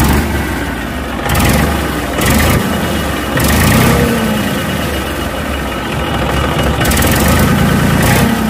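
Massey Ferguson 5245 DI tractor's diesel engine idling just after being started, with a few brief surges in loudness.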